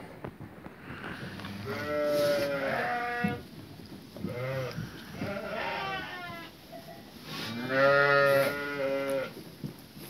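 Sheep bleating four times with a wavering pitch, the longest and loudest call about eight seconds in.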